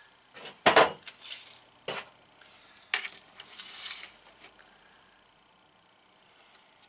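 Tool-handling clatter: a sharp knock about a second in and a couple of clicks, then a short rasp as a steel tape measure's blade is pulled out, near four seconds in.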